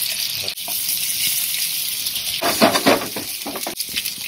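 Thin-sliced potatoes and crushed garlic sizzling in hot oil in a frying pan, a steady hiss with a louder stretch a little past halfway.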